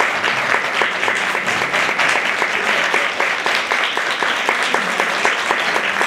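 Audience applauding steadily, a dense crackle of many hands clapping at the end of a stage performance.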